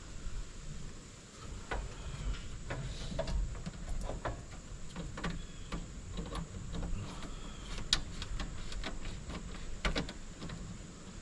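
Irregular small clicks and taps of hand work on an electrical sub panel's wiring, at uneven intervals, over a low background rumble.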